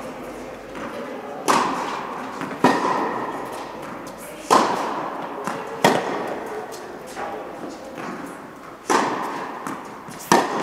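Tennis ball hit back and forth by rackets in a rally: six sharp pops one to two seconds apart, each ringing on in the echo of an indoor tennis hall.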